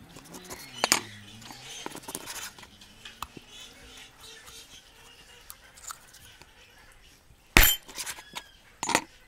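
Raw chicken being cut up on a wooden board: a knife crunching and clicking through skin and joints, then two heavy cleaver chops onto the board near the end, about a second and a half apart.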